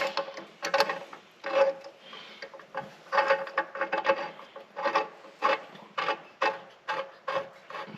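Short, irregular metal scraping and rubbing strokes, about one or two a second, as the detent shaft is worked and threaded by hand into the John Deere BN tractor's main case.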